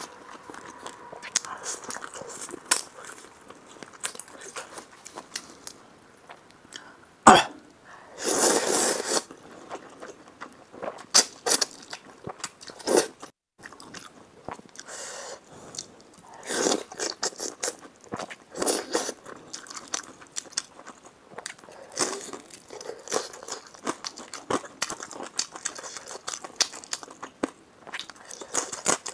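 A person eating close to the microphone: chewing and biting with wet mouth sounds and many short sharp clicks, one loud click about seven seconds in followed by a second-long noisy burst.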